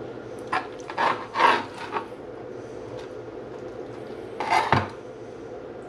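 Serrated bread knife sawing through smoked pork spare ribs on a plastic cutting board: several short rasping strokes in the first two seconds, then one more about four and a half seconds in.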